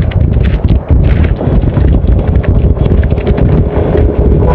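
Wind noise on the microphone from riding at speed, a loud low rumble, with rapid irregular ticking and a faint steady hum.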